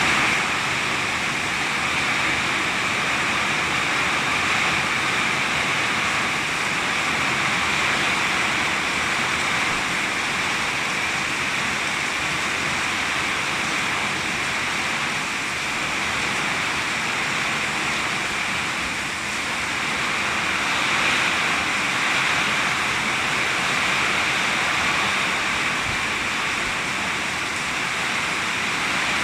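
Heavy rain pouring steadily, a constant even hiss.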